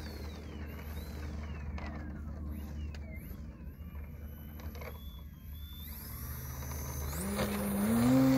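Electric RC airplane motor and propeller whining, the pitch wandering up and down with the throttle while taxiing, then rising and getting louder near the end as full throttle is given for the takeoff run.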